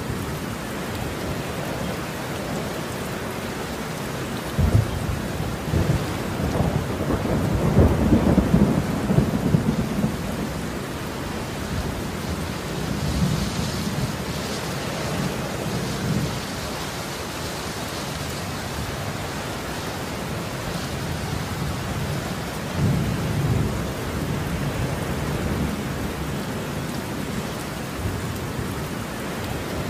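Heavy rain falling steadily. A low rolling rumble of thunder swells from about five to ten seconds in, and a shorter rumble comes a little past twenty seconds.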